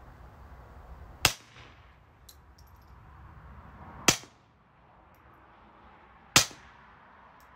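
Three shots from a Browning Buck Mark Micro Bull .22 LR pistol fitted with a .45-calibre titanium suppressor, firing supersonic .22 LR rounds. Each is a short, sharp crack. The second comes about three seconds after the first, and the third about two seconds after that.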